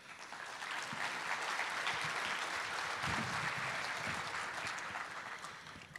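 Audience applause in a conference hall, swelling in the first second, holding steady, then fading near the end.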